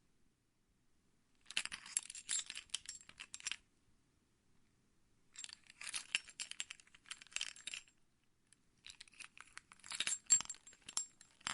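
A bunch of car keys jingling, shaken in three bursts of about two to three seconds each with short silent pauses between, the last running on to the end.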